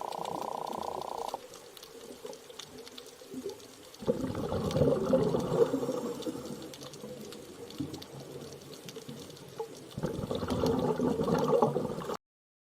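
Muffled underwater bubbling and water noise in a few abruptly spliced stretches, louder in the middle and again near the end, cutting off suddenly just before the end.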